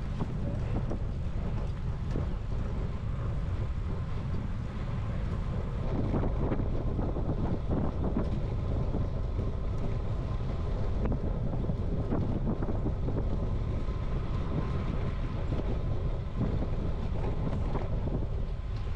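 Wind buffeting the microphone of a camera on a moving road bicycle: a steady low rushing noise that goes on without a break.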